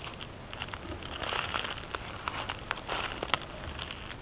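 Dry leaf litter crunching and rustling in irregular crackling bursts with sharp clicks, loudest about a second and a half in and again near three seconds.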